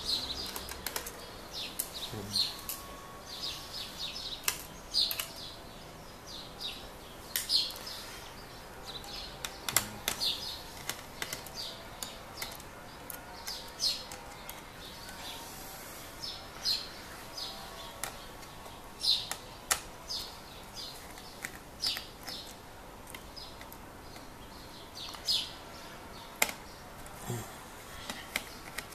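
Irregular short chirps, typical of birds calling in the background, mixed with scattered small clicks and taps of hand work on a laptop's parts.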